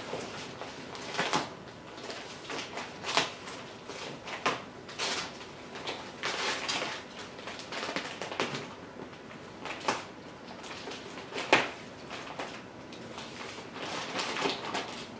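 Wrapping paper and tissue paper crinkling and tearing in irregular rustles and crackles as a small dog rips into a present.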